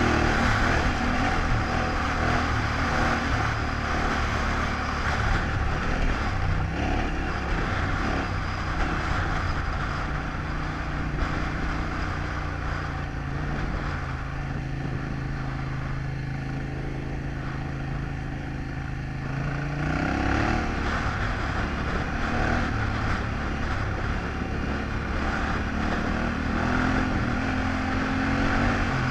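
Yamaha Ténéré 700's parallel-twin engine running steadily under way over an off-road track, with a rushing hiss over it. About twenty seconds in the revs rise and hold higher.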